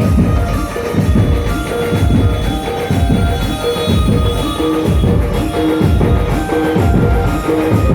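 Dhumal band playing loud instrumental music: a heavy, steady drum beat with held melody notes over it.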